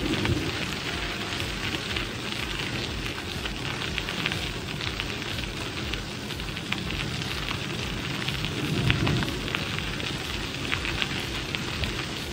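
Bicycle tyres rolling over a crushed-gravel trail: a steady crackling hiss, over a low, uneven rumble of wind on the microphone.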